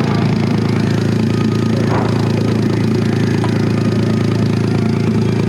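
Off-road buggy engine idling steadily.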